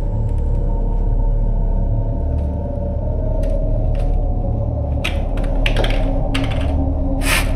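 Low, dark rumbling drone of a suspense score. Over it, from about three and a half seconds in, come short crinkles and rustles of a plastic bottle being handled, growing denser toward the end.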